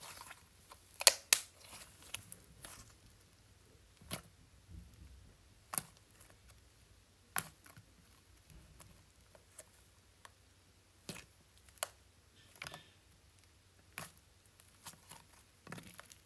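Thick green slime squeezed, kneaded and pressed flat by hand, giving irregular sharp clicks and pops as trapped air escapes. The pops come a second or a few seconds apart, and the loudest pair is about a second in.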